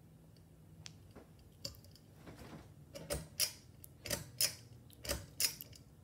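Ceiling fan pull-chain switch being clicked: three pulls, starting about three seconds in, each giving a pair of sharp clicks about a third of a second apart.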